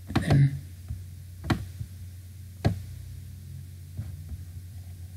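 A few isolated sharp clicks of a computer mouse, the two clearest about a second and a half and two and a half seconds in, over a steady low hum.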